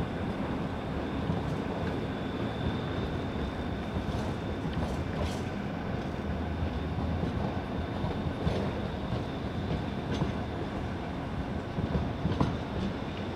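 Articulated low-floor tram rolling along curved track with a steady rumble. A faint high wheel squeal sounds in the first few seconds, and the wheels click over rail joints a few times later on.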